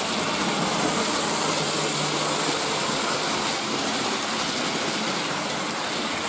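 Several Hornby OO-gauge model trains running round a layout: a steady whirr of their electric motors and wheels running over the track.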